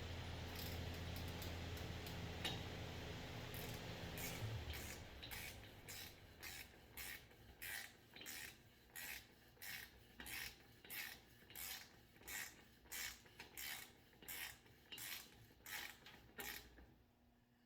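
Ratchet wrench running the outer spindle nut down onto a Dana 60 front axle hub: quiet, raspy ratcheting strokes about two a second, starting about five seconds in. A low steady hum underneath stops just before the strokes begin.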